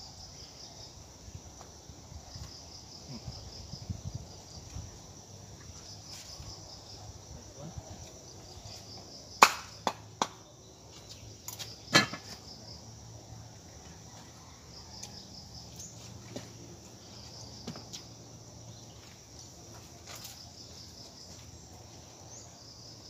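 Insects trilling steadily in a high, pulsing band, with three sharp knocks between about nine and twelve seconds in.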